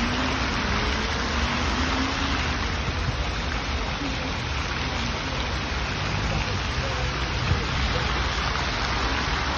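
Water from many fountain jets spraying and splashing steadily into a large pool.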